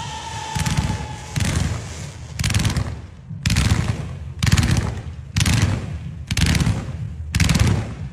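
Ground fireworks cake firing a run of volleys, each a rapid crackling burst of shots about half a second long, about once a second, eight in a row. A slightly falling whistle fades out in the first second and a half.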